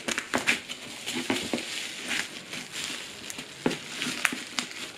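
Packaging being handled during unboxing: irregular crackling and rustling of cardboard and plastic wrapping, with scattered small clicks and knocks.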